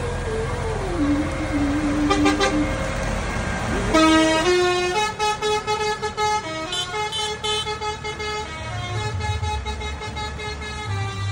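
Vehicle horn tooting as a tractor convoy passes, over a low engine rumble: first a tone that glides up and then down, then from about four seconds in a quick run of short stepped notes like a tune.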